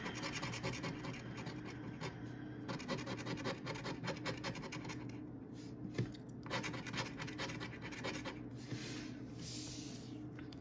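Rapid scratching strokes on a scratch-off lottery ticket as its coating is scraped away, in spurts with short pauses.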